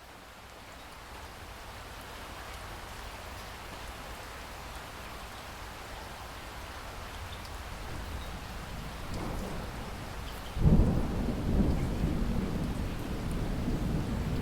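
Steady hiss of heavy rain, growing gradually louder, then a sudden loud clap of thunder about ten seconds in that goes on rumbling.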